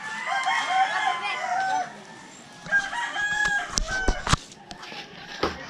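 A rooster crowing, one long crow for the first couple of seconds, then more calls about three seconds in. A few sharp knocks come around four seconds in and again near the end.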